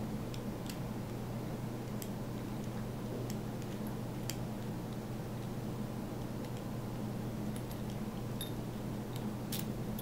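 Small, sharp metallic clicks come irregularly, about nine in all, as a key is worked in a chrome cam lock's cylinder, turning the cam and being pulled out. They sit over a steady low electrical hum.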